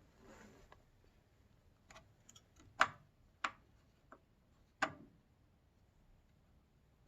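Several light, sharp clicks and taps of small computer parts being handled, about six spread over three seconds, the loudest about three seconds in.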